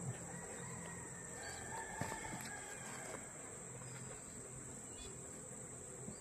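A faint, drawn-out bird call lasting about two seconds near the start, over a steady high-pitched insect drone.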